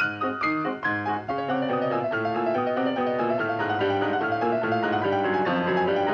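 Piano music from a cartoon score: separate struck notes and chords for about the first second, then a fast, unbroken run of notes.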